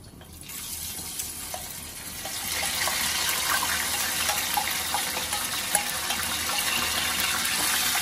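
Boiled corn kernels poured into hot oil in a pan, the oil sizzling. The hiss starts about half a second in and grows louder over the next couple of seconds as more corn goes in, with small crackling pops throughout.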